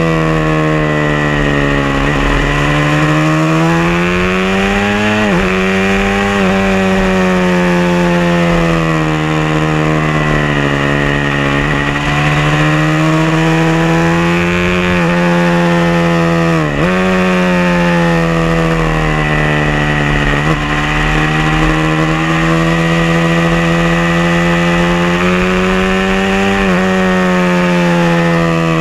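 Onboard sound of a Honda MC22 (CBR250RR) inline-four 250 running hard on track, its high-pitched engine note rising and falling with the throttle and dropping sharply at gear changes and braking about five times. Wind rush on the microphone runs underneath.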